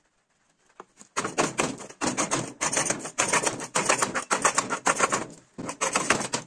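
Homemade spring-loaded plunger vegetable chopper, built in a plastic jar, pumped rapidly onto a wooden chopping board to chop onion: a fast clatter of blade strikes starting about a second in, with a short break near the end.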